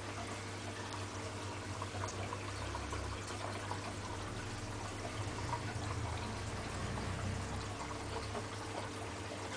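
Aquarium filter return water trickling and splashing into the tank, over a steady low hum from the filter pump.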